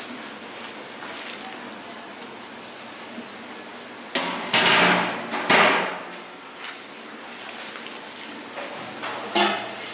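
Boiled soy milk pouring from a large steel cooking pot through a mesh strainer into a stockpot. About four seconds in, the heavy steel pot clanks and scrapes loudly for a couple of seconds as it is set back down, and there are more metal knocks near the end.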